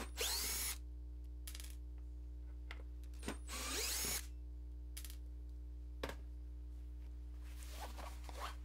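Small electric screwdriver whirring in two short bursts a few seconds apart, its pitch rising as it spins up, driving screws out of a chrome guitar bridge mounted on a wooden block. There are a few light clicks in between and a steady low hum underneath.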